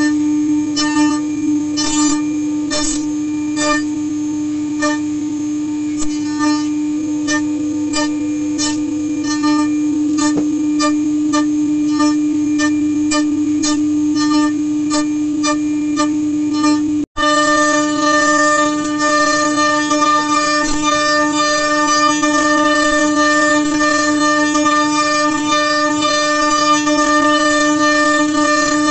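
CNC router spindle whining at a steady high pitch while its bit cuts a square pine blank turning on the rotary axis, with sharp cutting hits about twice a second. It breaks off suddenly about two-thirds of the way through, then comes back as a smoother, fuller whine of continuous cutting.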